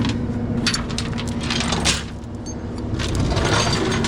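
A steady engine hum under a string of irregular clicks, clatters and rattles of metal parts being handled, with a brief lull about two seconds in.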